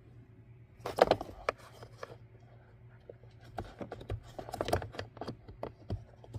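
Plastic clicks, knocks and scrapes as the Tesla Model Y's cabin air filter cover is handled and pushed closed. There is a sharp knock about a second in, a few single clicks after it, then a quicker run of small clicks and taps past the middle.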